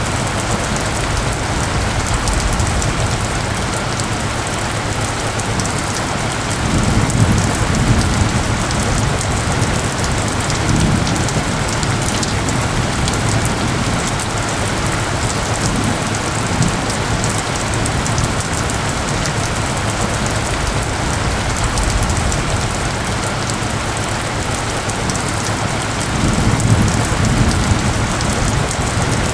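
Steady, heavy rain falling and pattering on surfaces, with low rumbles swelling up a few times, around seven seconds in, again around eleven seconds, and near the end.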